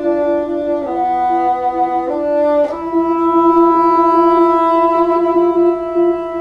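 Bassoon playing long sustained notes in a free improvisation, changing note a few times in the first three seconds and then holding one long note, with a fainter steady lower tone beneath.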